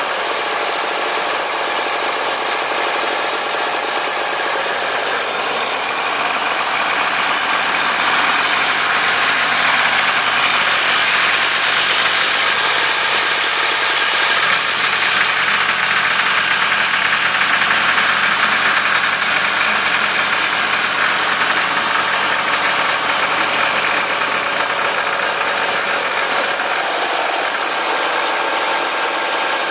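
Tractor engine running steadily, growing louder through the middle and easing off again near the end.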